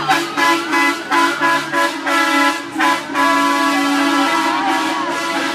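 Several bus horns honking together in short repeated blasts, about two or three a second. About three seconds in they change to one long continuous blast.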